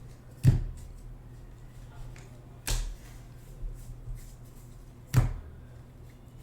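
Baseball trading cards being handled on a table during a box break: three sharp snaps or taps about two and a half seconds apart, over a steady low electrical hum.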